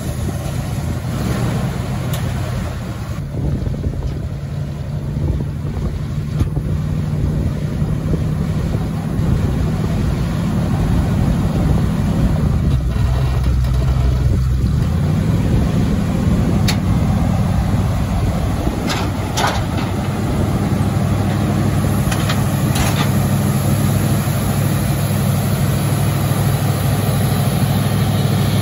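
Engine of a 1976 Chevrolet K5 Blazer running at idle, freshly started on the second try. Its steady low drone shifts in pitch slightly a few times, with a few light clicks in the second half.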